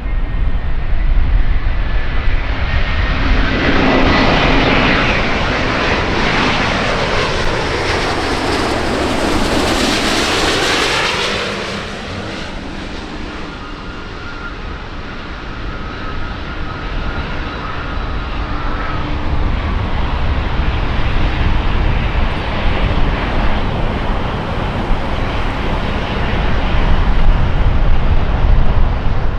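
Airbus A350-900 jet, Rolls-Royce Trent XWB engines, passing low on landing approach. Its whine glides down in pitch as it goes by, loudest around a third of the way in. It then dies down, and a deep rumble builds again through the second half.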